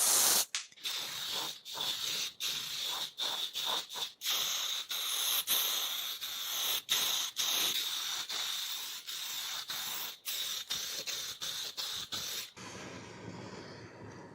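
Aerosol spray can hissing in a run of short bursts with brief breaks between them. Near the end the hiss gives way to a duller, lower noise.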